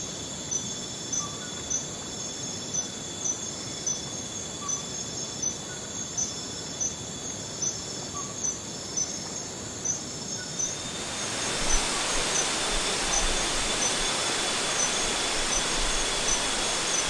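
Insects calling: a steady high hum with a chirp repeating about twice a second. A little over ten seconds in, the even rush of a waterfall comes in and holds, over which the chirps still sound faintly.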